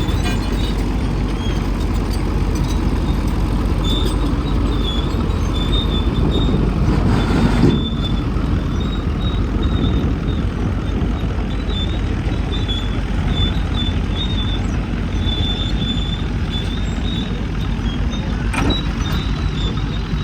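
A dragline excavator's engine running steadily under work, with a faint high squeak that comes and goes and a short rush of noise about seven seconds in.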